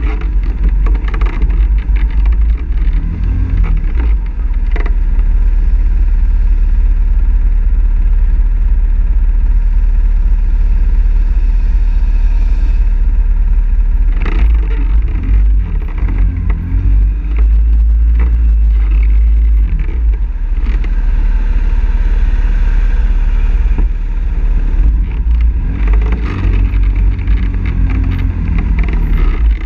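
ATV engine running, heard from on board the quad as it rides a rough dirt trail, with a heavy low rumble, the engine speed rising and falling, and a few thumps from bumps in the trail.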